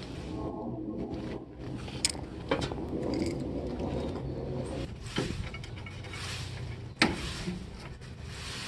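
Hands and tools working on a CRT television's parts: irregular knocks and clattering with scraping between them, the sharpest knock about seven seconds in.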